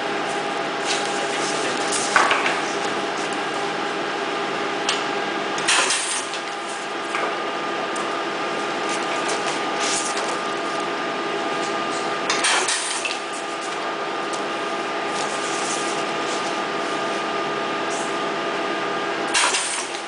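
Steady mechanical hum holding several tones, with a brief crackle of stiff PVC sheets being flexed and handled about five times.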